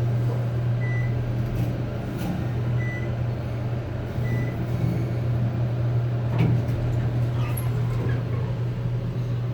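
Otis Series 1 elevator running with a steady low hum. There are three short high beeps in the first half, and a single knock about two-thirds of the way through.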